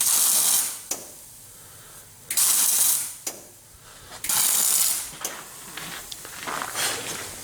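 Electric arc welder laying short stitch welds on thin sheet steel: three bursts of crackling hiss, each just under a second long and about two seconds apart, with a fainter burst near the end.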